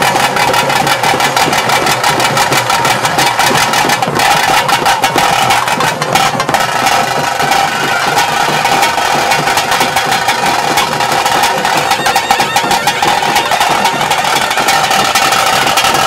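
Traditional ritual music: fast, steady drumming under a reed pipe playing a held, wavering melody.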